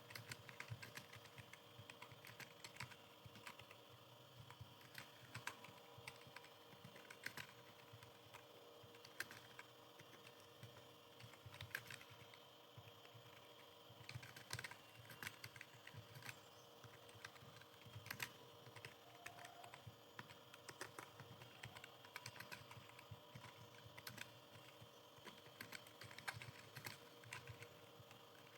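Computer keyboard being typed on steadily: quick, irregular key clicks, several a second, with a faint steady hum beneath.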